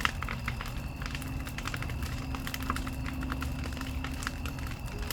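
Bonfire crackling: irregular sharp pops and snaps of burning wood over a low steady rumble.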